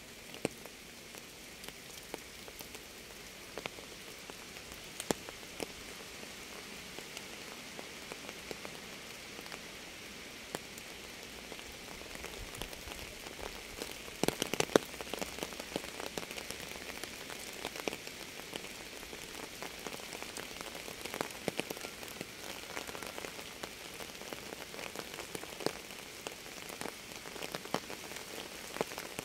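Steady rain falling on a surface: an even hiss dotted with individual drops ticking, with a flurry of louder drop hits about halfway through.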